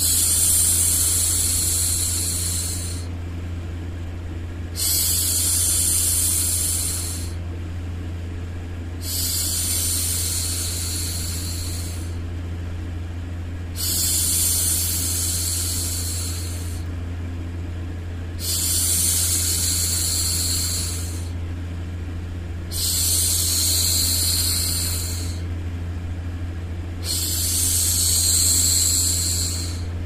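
A woman's voice hushing 'shhh' to soothe a baby, seven long shushes of about three seconds each, repeating roughly every four and a half seconds. A steady low hum runs underneath.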